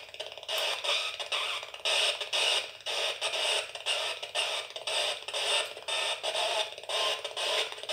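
Homemade spirit box's hacked FM radio sweeping the band, giving choppy bursts of static a few times a second as it steps from frequency to frequency, with the squelch off so the hiss between stations comes through.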